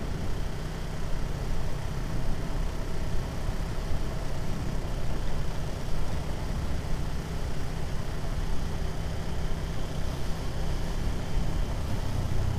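Motorcycle riding along a road: a steady mix of engine, road and wind noise heavy in low rumble, with no sudden sounds.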